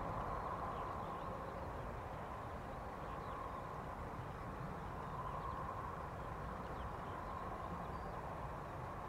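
Distant jet airliner engines at taxi power as a Boeing 747 freighter rolls past an Airbus A380: a steady whining hum over low rumble.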